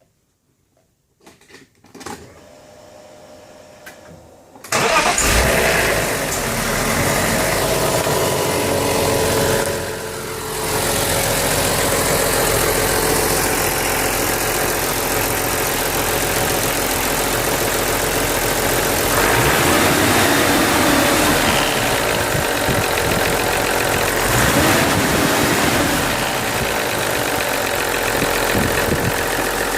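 BMW S50B32 straight-six engine starting about five seconds in, after a few clicks and a faint steady hum, then idling, with gentle revs twice in the second half. The rattle at low rpm after revving is the classic VANOS noise, which the owner traces to failed seals, blocked filters, worn bearings and cam gears.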